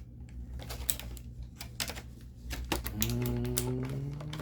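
Small plastic action-figure accessories and packaging being handled: a run of irregular light clicks and taps. About three seconds in, a low drawn-out vocal hum starts under the clicks and rises slightly in pitch.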